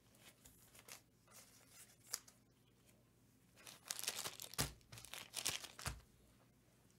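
Packaging crinkling and rustling as it is handled, faint at first and loudest from about four to six seconds in, with two soft thumps.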